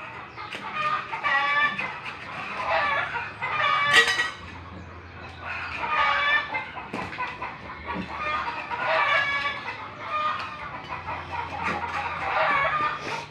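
Chickens clucking and calling over and over, in clusters of calls every couple of seconds, with one sharp click about four seconds in.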